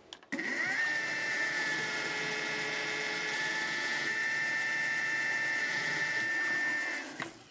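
Mini mill spindle starting up and running a step drill into the center hole of a metal plate and the MDF beneath: a steady high whine that rises briefly as the spindle spins up, stopping about seven seconds in.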